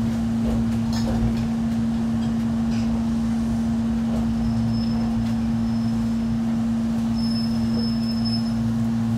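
Inside an Ichibata Electric Railway 5000-series electric train (ex-Keio 5000) creeping slowly into its terminus: a steady low hum from the car's equipment, with a few light knocks from the wheels on the rail joints. A faint high squeal comes twice in the second half, from the brakes or the wheels as the train slows to a stop.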